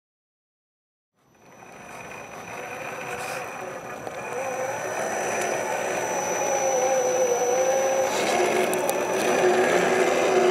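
Electric motor and gear drivetrain of an RC4WD Trail Finder 2 scale crawler whining, its pitch wavering up and down with the throttle. It fades in after about a second of silence, with a few light clicks near the end.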